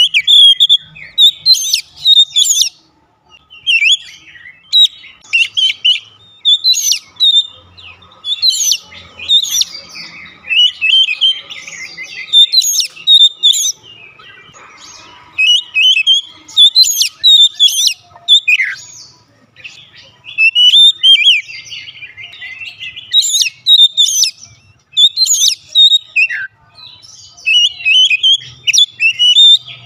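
Oriental magpie-robin singing in full voice: rapid, varied runs of whistles and chirps in short bursts about a second apart, with a few brief lulls and an occasional steep falling note.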